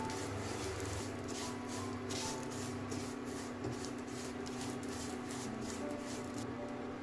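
Silicone spatula stirring and scraping roasting vermicelli around a nonstick pan, a rustling scrape about two to three times a second that stops near the end, over a steady low hum.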